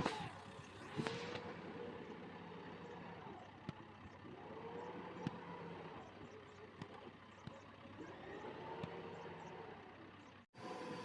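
Heavy machinery engine running, with a wavering tone that rises and falls every few seconds and a few sharp clanks. The sound cuts out briefly near the end.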